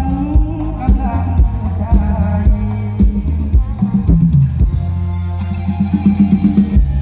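Live band music through a loud stage sound system: a drum-kit beat and bass, with a voice singing over the first half.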